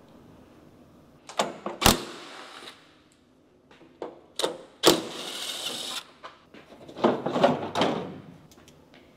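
Two sharp clicks, each followed by a brief rushing scrape, then a rattling clatter near the end: a tractor's side screen being unlatched and lifted off.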